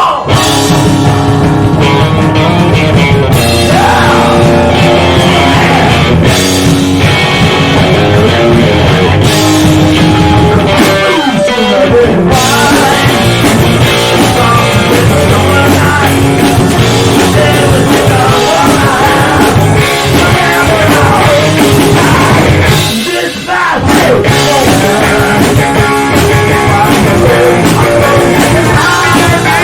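Live rock band playing loud, with electric guitar and drum kit, and a short break in the music about three-quarters of the way through.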